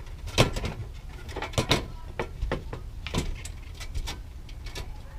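Irregular clicks, taps and scrapes as a mesh bug screen is pushed and straightened inside an RV's exterior vent, over a steady low rumble.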